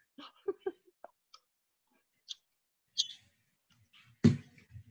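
Faint scattered clicks and small mouth sounds of a person eating a snack close to the microphone, with a short low voice sound about four seconds in.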